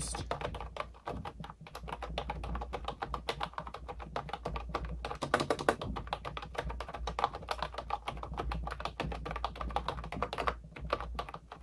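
Fast, continuous typing on a Sades V2020 wireless keyboard with round typewriter-style keycaps: a dense stream of key clicks that lets up briefly near the end.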